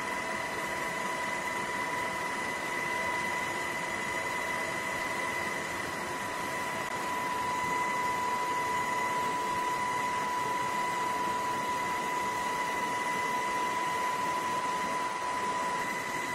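Steady, even hiss with a steady high whine and its overtone, unchanging throughout.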